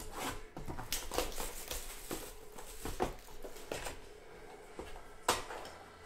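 A cardboard trading-card box being handled and pulled open by hand: irregular rustles, scrapes and flap sounds, with one sharper crack about five seconds in.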